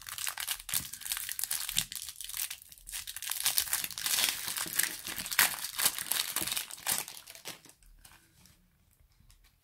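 Foil booster pack of Adrenalyn XL trading cards being torn open and crinkled by hand, a dense crackling that fades out over the last two seconds.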